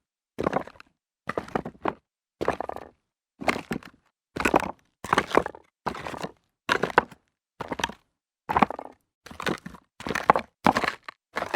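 Footsteps walking on rocks: a crunch and grind of stones under each step, one step at a time with silence between, the steps coming closer together in the second half.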